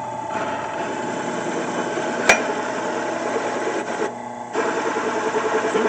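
Small benchtop drill press running, its large bit grinding into steel pipe, with a single sharp snap about two seconds in. The cutting noise dips briefly near the end, then picks up again over a steady motor hum.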